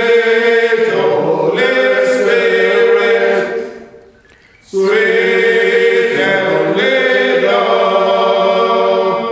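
A group of voices singing together without accompaniment, in long held notes, with a break of about a second roughly four seconds in before the singing starts again.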